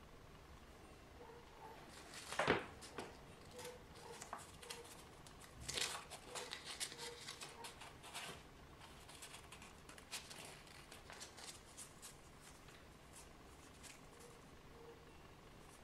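Faint rustling, crinkling and light clicks of hands handling a small motor armature and a thin black sheet, with the sharpest click about two and a half seconds in and a busier spell of rustling around six to eight seconds in.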